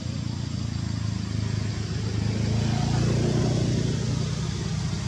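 A motor vehicle's engine running steadily, getting louder about two to three seconds in.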